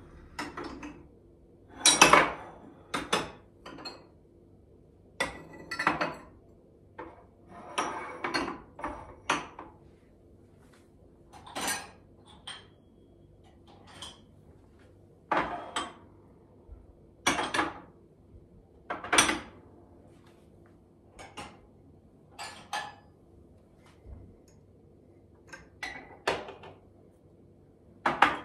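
Ceramic cups and mugs being set down on a kitchen cabinet shelf while dishes are put away: a long, irregular run of separate clinks and knocks, about one a second.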